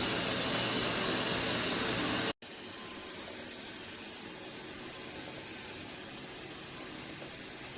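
Steady machine whir and hiss from a running eufy S1 robot vacuum-mop. About two and a half seconds in it cuts off abruptly and is followed by a fainter, steady whir.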